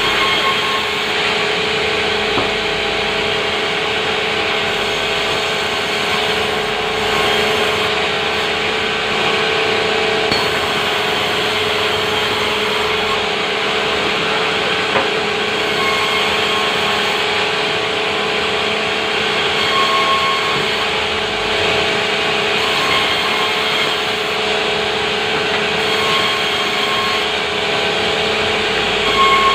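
Sawmill saw running steadily and cutting timber: a loud, continuous machine noise with a constant hum, and short higher squeals now and then.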